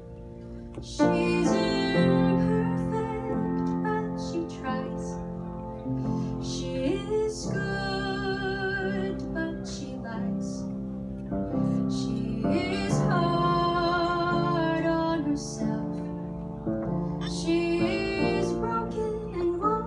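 A young woman singing solo into a microphone over an instrumental accompaniment. She comes in about a second in and holds several long notes with vibrato.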